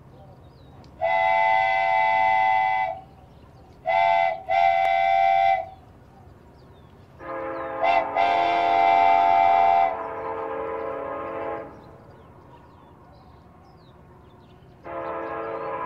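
Train horns sounding in a series of blasts: one long blast, then a short and a long. Then a lower multi-tone horn is held for about four seconds, overlapping a higher blast, and another lower horn starts near the end. A steady low hum runs underneath.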